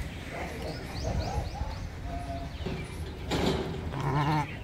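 Rural outdoor ambience: small birds chirping, with a short farm-animal call near the end.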